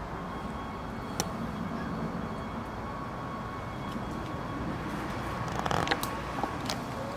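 Steady low outdoor rumble with footsteps on a leaf-strewn garden path: a sharp snap about a second in and a few crackles near the end.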